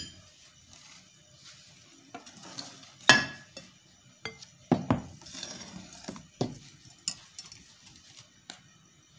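Metal spoon, steel mesh sieve and glass mixing bowls clinking and knocking as they are handled: about eight separate knocks, the loudest about three seconds in, with a soft rustle near the middle.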